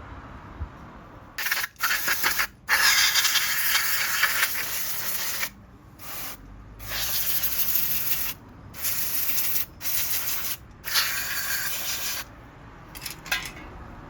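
Pressurised spray hissing in about six bursts of varying length, with short breaks between them, as the parts of a disassembled generator carburettor are jetted clean.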